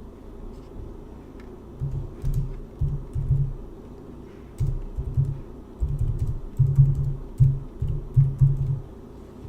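Typing on a computer keyboard: irregular runs of dull keystroke thumps beginning about two seconds in.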